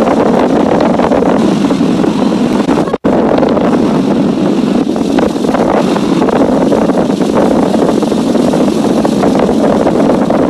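Outboard motor of a speeding motorboat running steadily, mixed with rushing water from the wake and wind buffeting the microphone. The sound cuts out for an instant about three seconds in.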